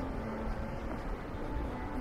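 City street ambience: a steady low rumble of traffic, with faint held tones in the background.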